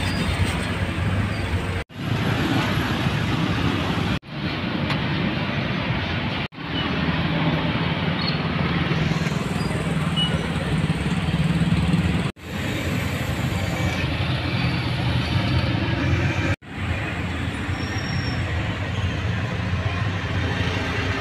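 Steady street traffic noise, with motorbikes and cars passing on the road. The sound cuts out for a split second about five times.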